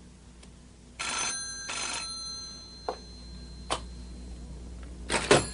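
Old-style desk telephone bell ringing: two short rings about a second in. A few clicks follow, then a clatter near the end as the handset is lifted from its cradle.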